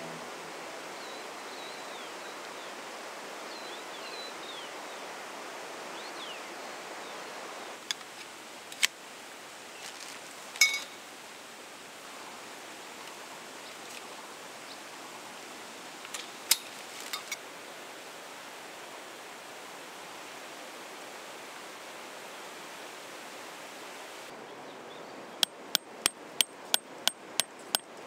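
Steady rush of a flowing stream, with a few faint chirps early on. Sharp clicks and knocks of camp gear being handled come and go, then a quick run of evenly spaced clicks, about three a second, near the end.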